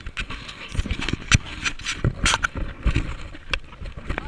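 Irregular knocks, scrapes and rubbing of a person climbing a metal balcony railing and moving over a wooden deck, picked up close by a body-worn GoPro in an open skeleton housing.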